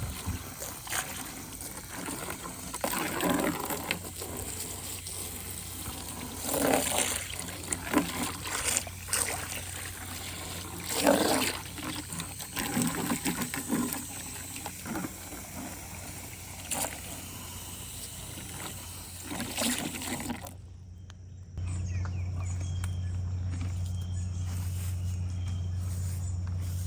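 Water from a garden hose spraying into and splashing around horses' feed buckets, with louder splashes every second or two as buckets are rinsed out. About 21 seconds in it cuts to a steady low hum.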